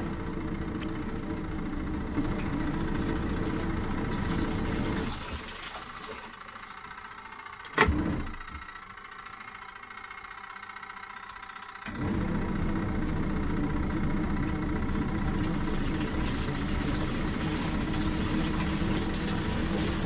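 Imperial 18 kg twin-tub washing machine's wash motor humming as it churns the rinse water on the normal cycle. It runs for about five seconds, stops for several seconds with one sharp click in the pause, then starts again about twelve seconds in, the run-and-pause pattern of the agitator.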